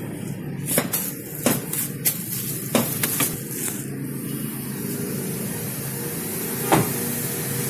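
A run of sharp clicks and knocks from handling inside a car, about six in the first four seconds and one more near the end, over a steady low rumble.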